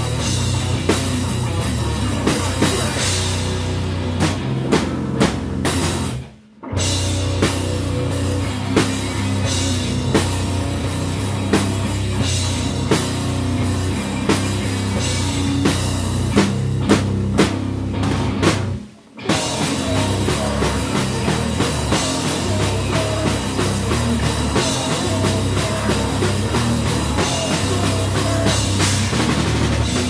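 Live hardcore band playing an instrumental stretch: distorted guitars, bass and a hard-hit drum kit. The band cuts out dead for a split second twice, about six and a half seconds in and again near nineteen seconds, then crashes straight back in.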